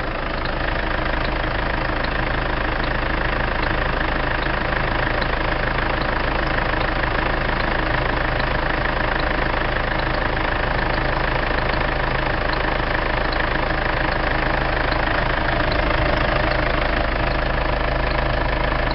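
Mazda BT-50 diesel engine idling steadily, with a faint high squeak repeating evenly about twice a second from the front of the engine; the owner cannot tell what causes it.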